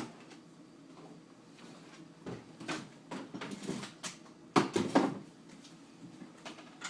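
Kitchen handling sounds: a run of light knocks and clatters, then two sharper knocks about four and a half and five seconds in, like a cupboard or drawer and hard objects being moved about.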